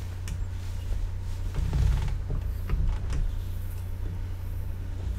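Treadled spinning wheel running as fibre is drafted onto it: a steady low whir with a few soft clicks and rustles.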